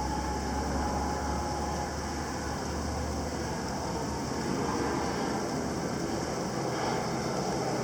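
Moderate rain and gusty wind, an even steady hiss over a low steady rumble.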